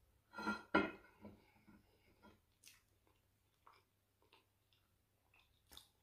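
Eating sounds from boiled yam with owo soup: wet mouth and chewing noises, loudest twice about half a second in, then sparse soft smacks and clicks.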